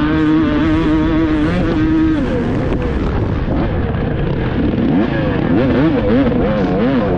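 300 cc two-stroke motocross bike being ridden hard. The engine holds high revs for about two seconds, then revs repeatedly fall and rise as the throttle is rolled off and on.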